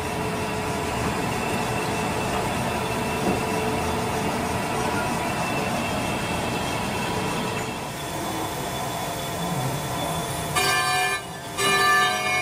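Steady industrial machinery noise with faint steady whining tones running through it. About ten seconds in, music with bright keyboard notes comes in over it.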